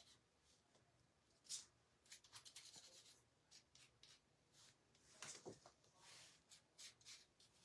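Faint, irregular rubbing and scratching strokes on a painted frame being distressed, with a slightly louder stroke about a second and a half in and a few more near five seconds.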